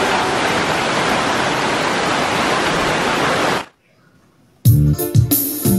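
Small waterfall splashing down a rock face, a steady rush of falling water that cuts off suddenly about three and a half seconds in. After a second of silence, keyboard music starts near the end.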